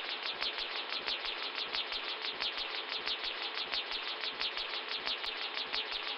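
Live-coded electronic noise music: a fast, even loop of short, high, falling chirps, about five or six a second, over a steady hiss, with soft low thuds underneath.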